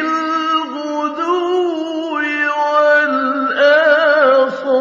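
A male reciter's voice chanting the Quran in a melodic style, holding long drawn-out notes that step between pitches. It swells into a louder, wavering ornament near the end.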